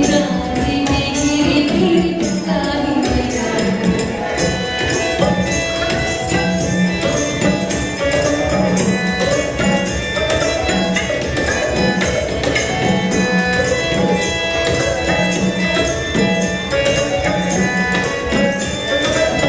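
A recorded Indian song with singing over a steady percussion beat, played as dance music.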